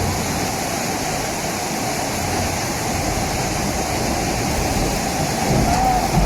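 Swollen river in flood rushing past its banks: a loud, steady roar of fast-moving water.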